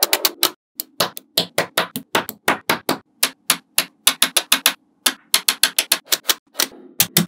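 Small metal magnetic balls clicking sharply as blocks of them are snapped onto a panel of balls: a quick, irregular run of clicks, several a second, with short pauses.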